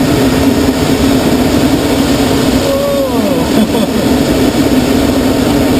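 Loud, steady rush of air around a glider in a high-speed dive, with a constant low hum running through it.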